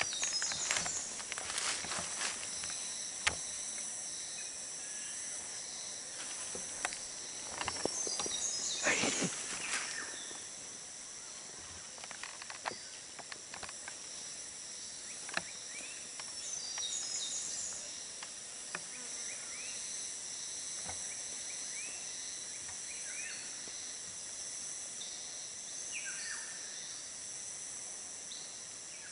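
Steady high-pitched chorus of insects, several pitches held at once. Rustling and a few sharp clicks come in the first ten seconds, and a few short chirps come later.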